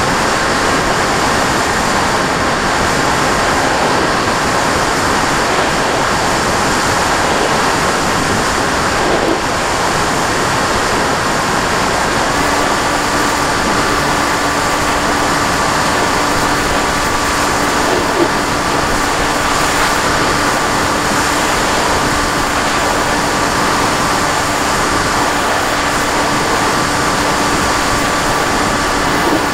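RC model airplane's motor and propeller as heard through its onboard camera: a loud, steady rush of wind and propeller noise with a thin motor whine whose pitch changes about twelve seconds in.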